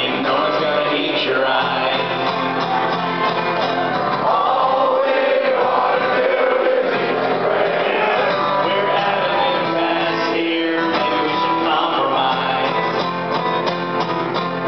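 Live song with acoustic guitar and a male lead singer, a crowd of many voices singing along, heard from among the audience.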